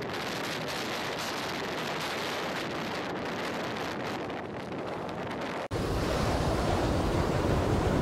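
Blizzard wind blowing steadily across open tundra. About six seconds in it cuts to a louder stretch with heavy low rumble of wind buffeting the microphone.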